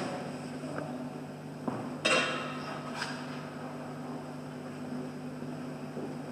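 Quiet room tone with a steady low hum, broken by a sharp knock about two seconds in and a softer one a second later.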